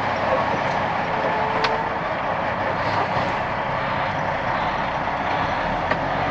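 Loaded dump truck driving on a gravel road: steady engine and road noise with a few sharp clicks. Near the end the engine's note stands out more clearly.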